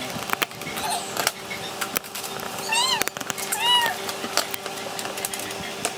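A cat meowing twice, two short rising-and-falling calls about a second apart near the middle, amid scattered sharp clicks and rustles of a box being handled.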